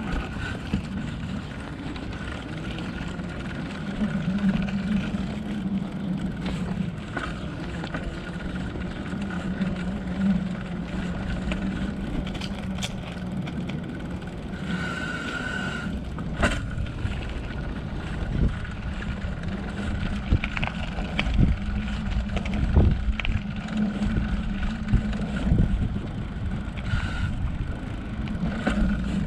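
Riding noise from a mountain bike rolling over a concrete sidewalk: a continuous rumble of tyres and wind on the microphone, with a steady low hum underneath. Sharp knocks and rattles come as the bike goes over cracks, more often in the second half.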